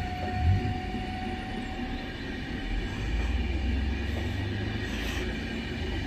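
Double-deck passenger train running past on the rails, a steady low rumble of wheels and coaches, with a faint high whine that fades out about two seconds in.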